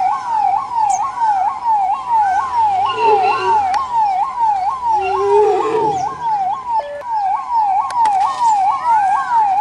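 Ambulance siren in a fast yelp, sweeping up and down about three times a second, briefly dropping to a low steady tone a little past halfway. Twice in the middle a lower sound rises beneath it, and a few sharp knocks come near the end.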